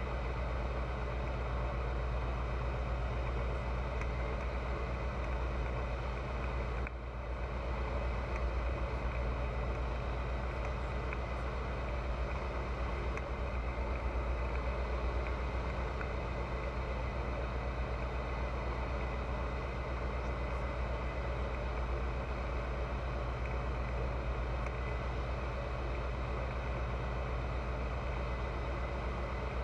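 Pipistrel Virus light aircraft's four-cylinder Rotax engine and propeller droning steadily, with a brief dip in the sound about seven seconds in.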